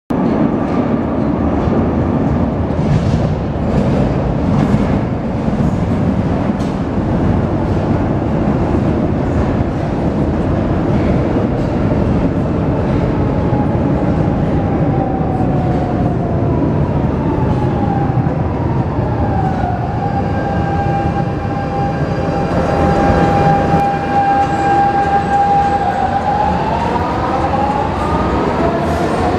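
Lisbon Metro train running, with a loud rumble and clatter of wheels on rail. About halfway through an electric motor whine falls in pitch as a train slows, holds steady, then rises again near the end as it pulls away.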